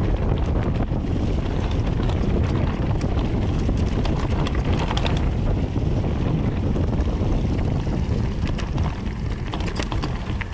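Wind rushing over the microphone during a mountain-bike ride at speed, with scattered clicks and rattles from the bike on the trail. It eases off near the end.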